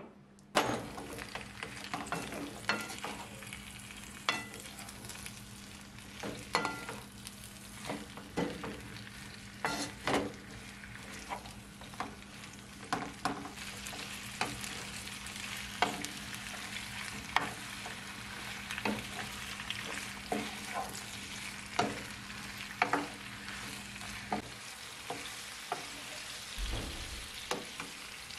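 Sliced zucchini and red pepper sizzling in olive oil in a nonstick frying pan, starting suddenly about half a second in, while a wooden spatula stirs them with frequent knocks and scrapes against the pan.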